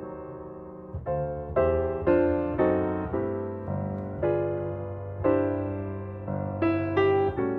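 Background music: slow, soft solo piano, single notes and chords struck about once or twice a second and left to ring out.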